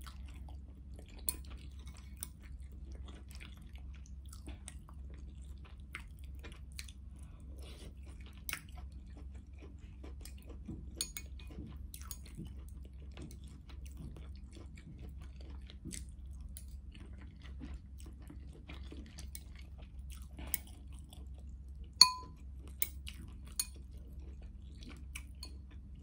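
Close-up chewing of noodles and okra in broth, with scattered small clicks of metal chopsticks against a glass bowl. Late on, one sharp ringing clink of chopsticks on the glass stands out, over a steady low hum.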